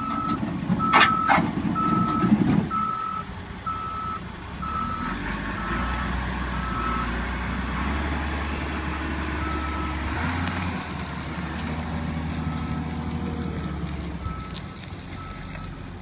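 Cat 924G wheel loader's backup alarm beeping steadily, roughly once a second, over its running diesel engine; the beeps fade in and out in the second half. Loud clattering in the first two or three seconds.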